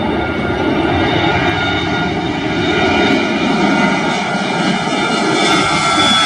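Airliner's engines at takeoff power: a loud, steady rush of engine noise with high whining tones that slide slightly lower near the end as the aircraft moves past.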